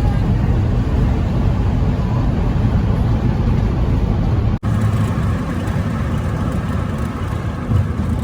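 Steady low noise of a vehicle on the move, cut for a split second about halfway through, after which it carries on much the same.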